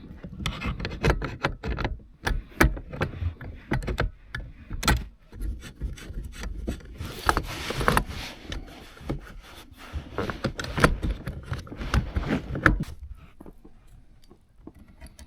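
Hands unscrewing and working loose a dishwasher's drain hose connection: irregular rubbing and scraping with many sharp clicks, busiest about halfway through and dying away near the end.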